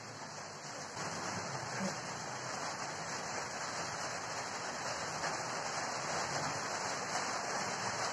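Steady rain falling, a little heavier from about a second in.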